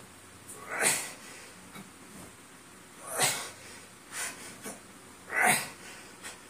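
A man's forceful breaths out under exertion during a set of strength-training reps. There are three loud, sharp exhalations about two seconds apart, with softer breaths between them.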